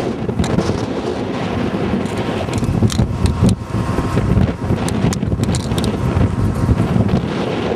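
Strong wind buffeting the microphone: a loud, uneven low rumble that swells and dips with the gusts, broken by short crackles.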